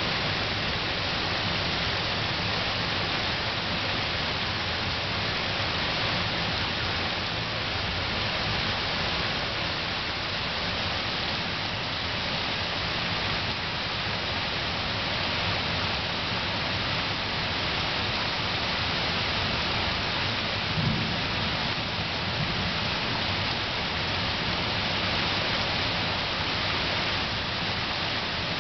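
Heavy thunderstorm downpour: a dense, steady hiss of rain pouring on the ground and foliage. There is one brief low thump about three quarters of the way through.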